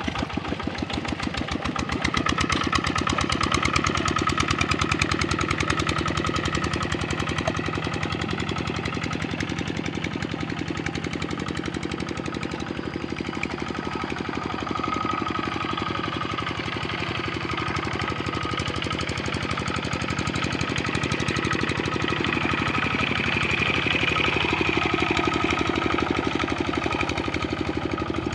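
Kubota RD65 single-cylinder diesel engine of a hand tractor running steadily in a fast, even chug, under load while the tractor harrows deep paddy mud. It gets a little louder about two seconds in.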